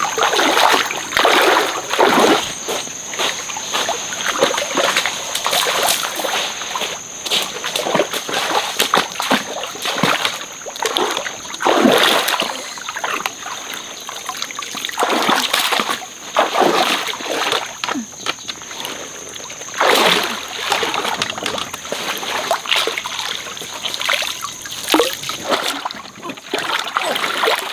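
Stream water splashing and sloshing in irregular bursts, one every second or two, as it is stirred by hand or foot.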